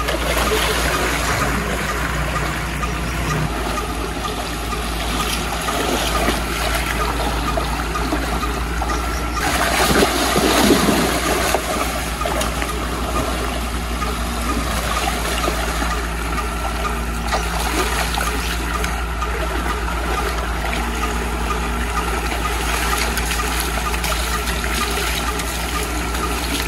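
Steady rush of water flowing from a tubewell outlet pipe into a shallow irrigation channel, over a steady low hum. About ten seconds in the splashing gets louder as the calf and the person wading beside it stir the water.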